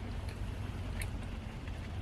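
Steady low rumble of a car's interior, with a couple of faint short clicks about a second apart.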